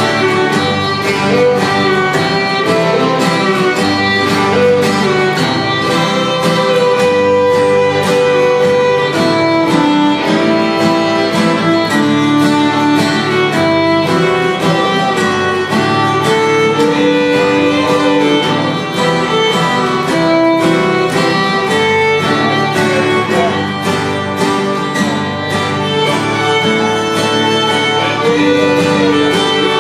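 A contest fiddle tune played on fiddle, backed by three acoustic guitars strumming a steady rhythm.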